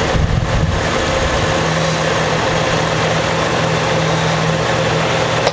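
Steady mechanical noise: an even hiss over a constant low hum.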